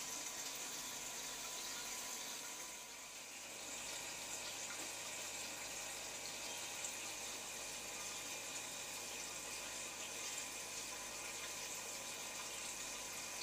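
Steady hiss of running water, dipping briefly about three seconds in.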